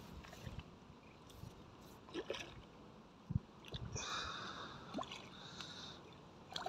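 Hooked fish splashing and thrashing at the surface of a pond while being played on the line, in short scattered splashes with a longer swirl of water about four seconds in. A sharp thump a little past three seconds in is the loudest sound.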